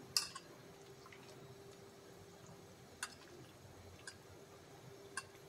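Hand mixing marinated chicken pieces in a stainless steel bowl, with four sharp metallic clinks against the bowl: the loudest just after the start, then three about a second apart in the second half.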